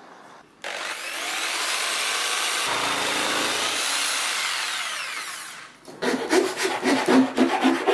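A power tool starts up just under a second in and runs steadily while shaping plywood. Near the end the wood is worked against it in a quick series of uneven grinding, rubbing contacts.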